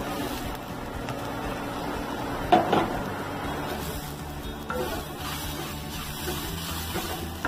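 Grated coconut sizzling in a hot kadai of tempered mustard seeds, urad dal, dried chillies and curry leaves on a low flame while a wooden spatula stirs it, with a sharp clatter against the pan about two and a half seconds in.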